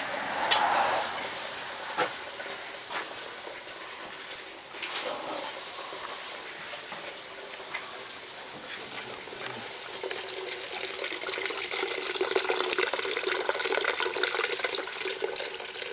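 Grape juice running and splashing out of a basket wine press into a container as the grapes are squeezed, growing louder in the second half. A few sharp clicks in the first five seconds come from the press's ratchet handle being worked.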